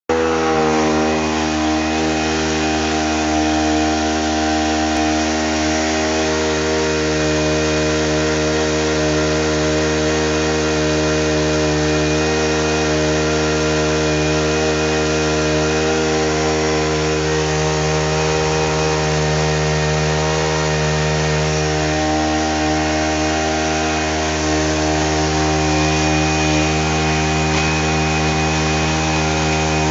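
Small Makita petrol engine running steadily at high speed, driving a water pump under load during a pressure test.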